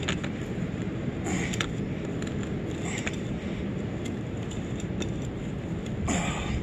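Hand grease gun being pumped into a riding mower deck's blade spindle grease fitting: a few faint clicks and squelches over a steady low rumble.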